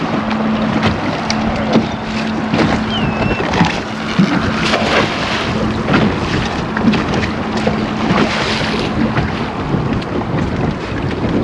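Wind buffeting the microphone on an open boat over water splashing and sloshing, with a steady low hum underneath and scattered sharp knocks and splashes.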